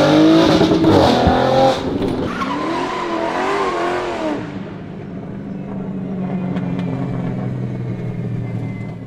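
2023 Audi RS5's twin-turbo V6 running through 034 Motorsport downpipes and an AWE Touring exhaust. It revs up loudly, blips a few times, then settles about four and a half seconds in to a steady idle.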